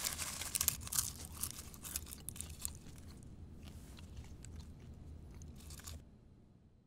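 Popcorn being crunched and chewed, with sharp crunches that come thickest in the first couple of seconds and then thin out, fading away near the end.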